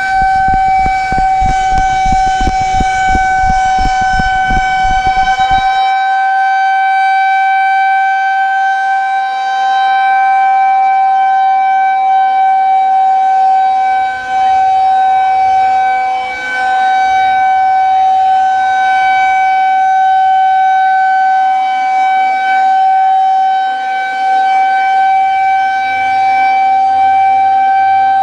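Federal Signal 2001-130AC outdoor warning siren sounding a steady, single-pitch alert tone during a test, its horn turning on a repaired rotator; the loudness dips briefly a few times.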